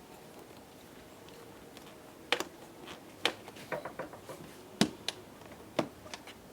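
Scattered sharp clicks and knocks of hard plastic air intake parts being unclipped and handled, about eight in the second half, the loudest near the end.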